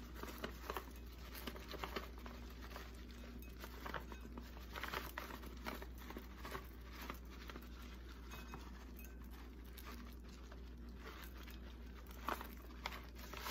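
Plastic bag of shelled sunflower kernels crinkling in gloved hands as it is shaken, with the seeds pattering down onto shredded cabbage slaw. Faint, irregular crackles throughout.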